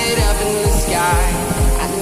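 Background pop-electronic music with a steady kick-drum beat and a sung vocal line.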